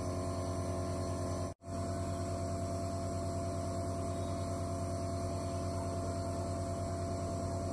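Dr Trust compressor nebulizer running, a steady electric hum and buzz from its air compressor while it turns the medicine into mist; the sound drops out for a moment about one and a half seconds in, then goes on unchanged.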